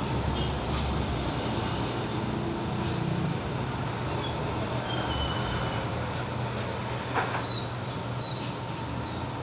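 Steady rumble of passing street traffic, with a few short snips and clicks from barber's scissors.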